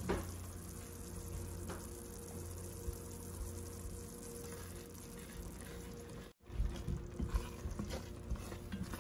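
Thick onion and chili sauce simmering in an enamelled cast-iron pot over a steady low hum. From about six and a half seconds in, a wooden spoon stirs it, with soft irregular knocks against the pot.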